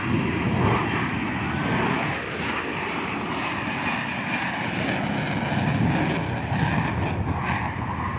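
F-35B Lightning II fighter jet's F135 engine running at high power during takeoff: a steady, noisy jet rush.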